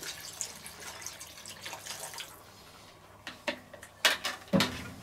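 Broth being poured from a measuring jug into a cast-iron Dutch oven of stew, a steady splashing pour that tails off about two seconds in. A few short knocks and clicks follow near the end.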